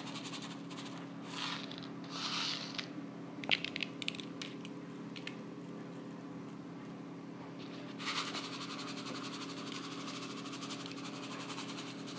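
Faint rustling and a few light ticks of chocolate sprinkles being scattered over a frosted cake, the ticks bunched together about three and a half seconds in, over a steady low electrical hum.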